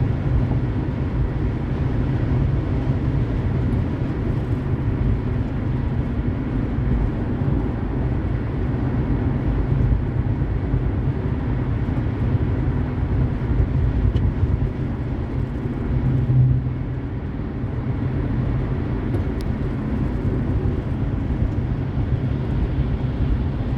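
Car driving at highway speed: steady road and tyre noise with a low hum. There is a brief louder swell about sixteen seconds in.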